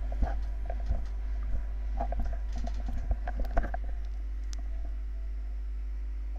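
Soft rustles and small clicks from a person shifting and rubbing his face close to the microphone, over a steady low electrical hum. The clicks thin out about four seconds in.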